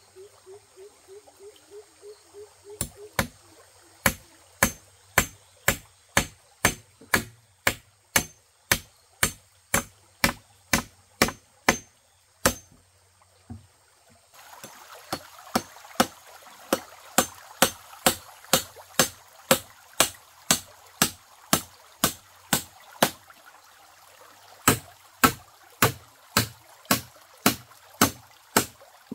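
Steady, sharp blows of a hand tool striking, just under two a second, pausing briefly about halfway and again near the end. Running stream water is heard under the second half.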